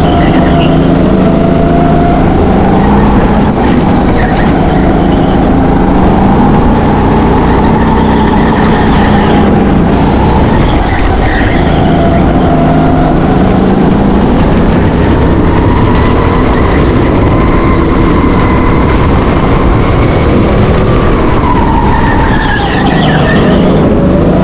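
Go-kart engine at full throttle, heard from onboard the kart. Its pitch climbs and falls again and again as it accelerates and brakes through the corners, with a sharp drop and recovery near the end.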